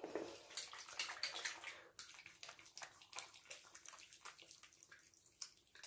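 Faint wet splashing and squishing as hands splash water onto the face and rub in a foaming facial cleanser, in short irregular bursts.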